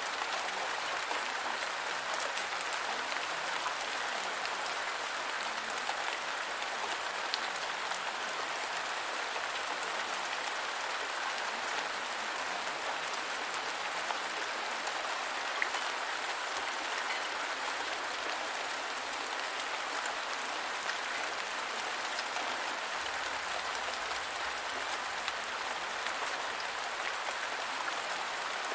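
Steady rain falling, an even hiss with a single drop tick now and then.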